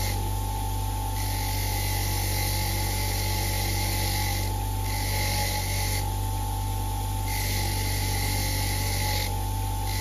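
Bench grinder fitted with a wire wheel, running steadily with a constant motor hum while a dirty braided earth strap is held against the spinning wire brush to scrub it clean. The scratchy brushing sound shifts a few times as the strap is moved against the wheel.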